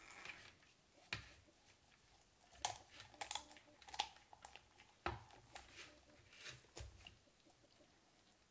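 Kitchen shears cutting through the rib cage of a raw, skinned rabbit, heard as faint, irregular crunching snips, about ten over several seconds.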